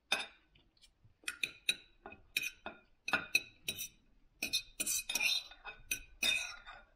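Knife and fork clicking and scraping against a plate as food is cut up, a string of sharp separate clinks followed by longer scrapes about five seconds in.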